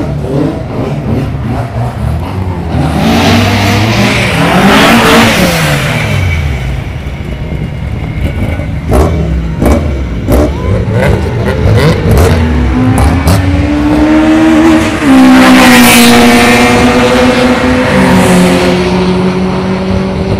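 Race car engines passing close by on a circuit, their pitch rising as each one approaches and dropping as it goes past, twice. A run of sharp clicks sounds in between.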